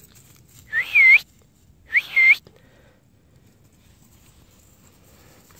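Two short whistles calling the dogs, about a second apart. Each is a quick upward swoop followed by a wavering note.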